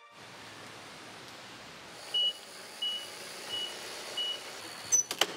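A truck's reversing alarm beeping four times, evenly spaced about two-thirds of a second apart, over a steady outdoor hiss. A few sharp knocks come near the end.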